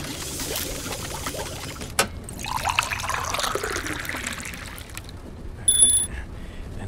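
Sound effects of a brass tea-making machine brewing: water pouring and trickling, a sharp click about two seconds in, a stretch of wavering, sliding tones, then a sudden bright ding near the end as the tea is ready.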